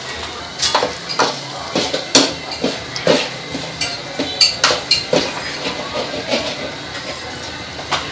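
A metal cooking utensil clinking and scraping against a pan, with sharp irregular knocks about twice a second, over a steady frying sizzle.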